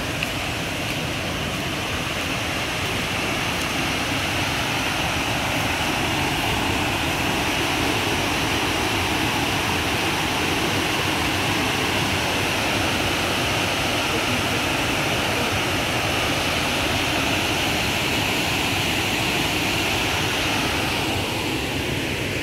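Water rushing steadily over a low stepped river weir, a constant hiss that eases off a little near the end.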